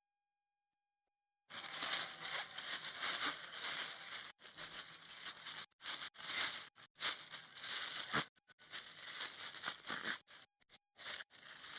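Plastic substrate bag crinkling and rustling in uneven bursts while it is handled during spawn inoculation, starting about a second and a half in.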